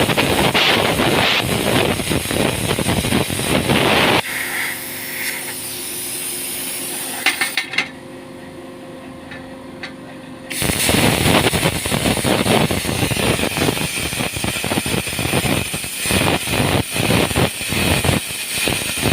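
Angle grinder with a cutting disc working steel plate: a loud rough grinding for about four seconds, then the disc runs off the metal and the motor spins free with a quieter steady hum, and from about ten seconds in the grinding resumes with an uneven, pulsing rasp as the disc is worked into the plate.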